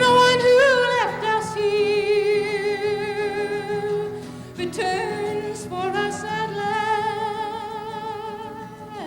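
A woman singing a folk song live, drawing out long held notes with wide vibrato over a light acoustic guitar accompaniment.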